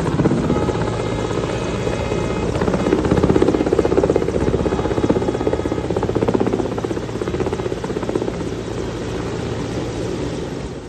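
Army helicopter flying close overhead: fast, steady rotor-blade chop with a constant turbine whine, loudest in the middle stretch.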